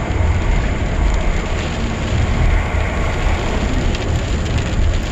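Wind rushing and buffeting around a car driving in rain: a steady noise with a heavy low rumble.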